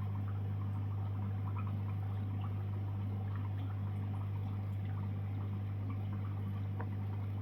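Aquarium equipment running: a steady low pump hum under continuous trickling and bubbling water with small irregular drips and pops.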